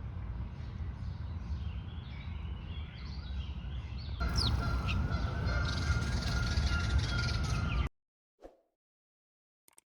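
Outdoor ambience of birds chirping and calling over a heavy low rumble of wind on the microphone. About four seconds in, the sound changes to louder, busier birdsong. It cuts off suddenly near eight seconds, leaving silence with a couple of faint clicks.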